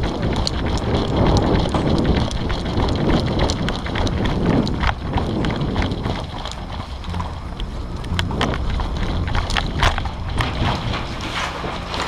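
Wind and handling rumble on a helmet-mounted GoPro's microphone, with many scattered sharp clicks and knocks, a few louder ones near the end.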